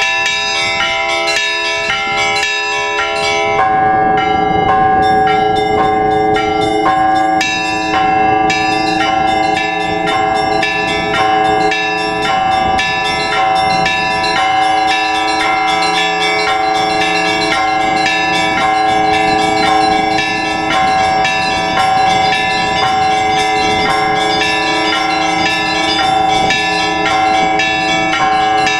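Orthodox church bells rung together by a bell-ringer: quick, rhythmic strikes of the small bells over the steady ringing of the middle bells. About three and a half seconds in, the peal grows fuller as a lower bell joins, sounding at intervals beneath the rest.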